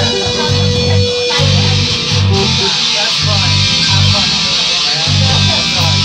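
Live rock band playing: electric guitars, keyboard and drums with cymbals, over a bass line that moves note by note.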